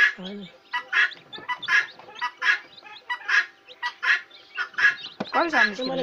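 Poultry calling over and over: a short, harsh call repeating a little more than once a second, with a lower, wavering call joining near the end.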